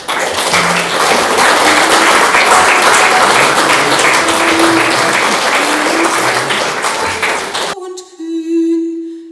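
Audience applauding, dense and steady, for about eight seconds. It cuts off abruptly near the end, and a woman's singing voice follows on a long held note.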